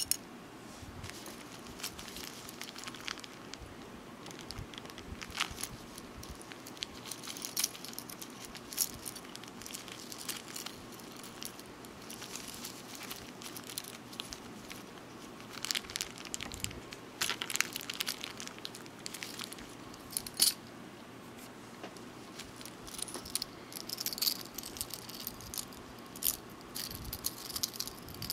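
Scattered small metallic clicks and clinks as fingers fit a treble hook and split ring onto a bottle-cap fishing lure, with an occasional rustle of a plastic hook packet.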